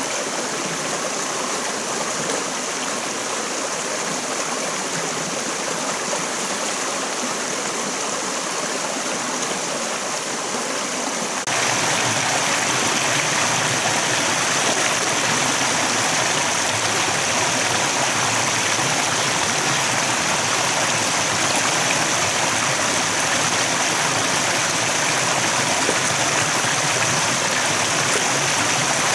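Shallow rocky stream running over small cascades, a steady rush of water. It grows louder and fuller about a third of the way in.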